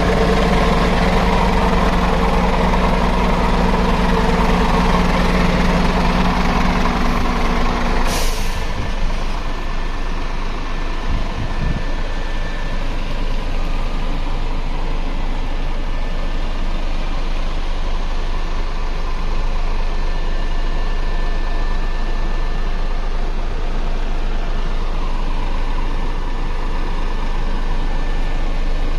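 Scania R 450's 13-litre six-cylinder diesel idling steadily, loud for the first eight seconds, then more muffled. About eight seconds in comes one short sharp hiss of air.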